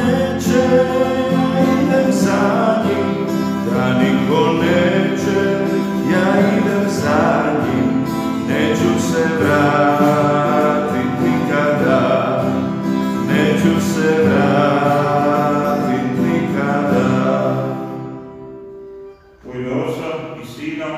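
A hymn sung with instrumental accompaniment, fading out near the end; a man's voice starts speaking just after.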